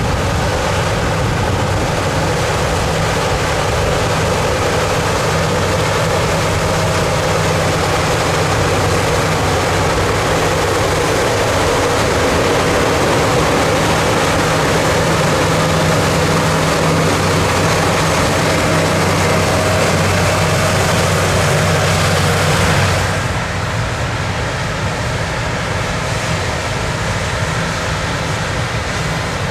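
A heavy engine running steadily, a constant low hum under dense mechanical noise. About three-quarters of the way through, the sound abruptly steps down a little and loses some of its high hiss.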